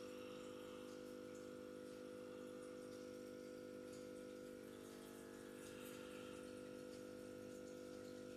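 Very quiet, faint steady hum.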